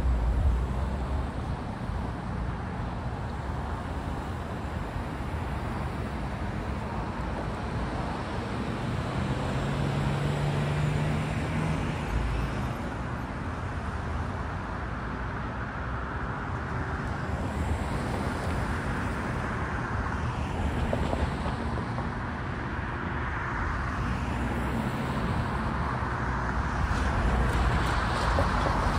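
Road traffic on a city street: car engines and tyre noise from passing vehicles, growing louder near the end as cars drive through the intersection.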